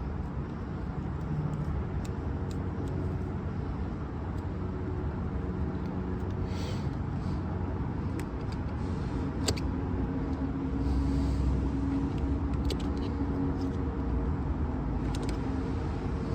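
Steady low background rumble, with a few light clicks as a pry tool works the iPhone's glued back glass loose.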